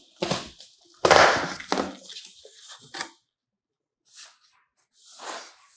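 Cardboard shipping box being opened and unpacked: flaps and a packing sheet scraping and rustling in a few short bursts, the loudest about a second in.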